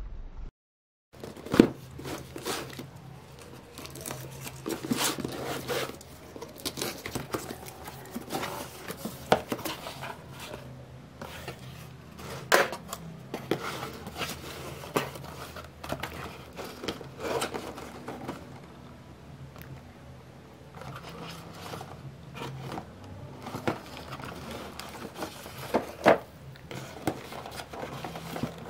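Hands handling cardboard packaging: a shipping box's flaps and the cardboard-and-plastic window boxes of two diecast model cars being moved about, with irregular rustling, scraping and sharp knocks. The loudest knocks come about a second and a half in and near the end.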